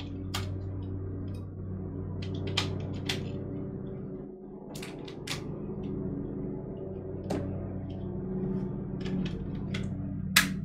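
Scattered sharp clicks and knocks, about a dozen, from objects being handled, the loudest near the end, over low steady background music.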